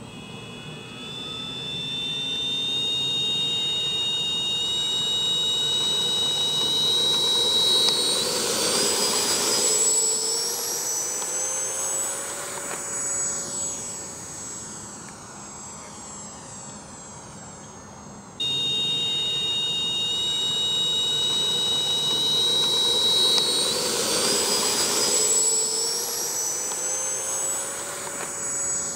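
Electric ducted-fan motor of a Freewing L-39 model jet whining at take-off power, its pitch rising as it speeds down the runway. It is loudest as it passes, then fades as it climbs away. About two-thirds through the sound cuts off abruptly and the same take-off run-up is heard again.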